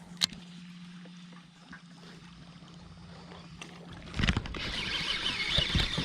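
A steady low hum with one sharp click just after the start. About four seconds in the hum stops and busy splashing and scuffling take over: a hooked largemouth bass thrashing at the surface during the fight, shortly before it comes off the hook.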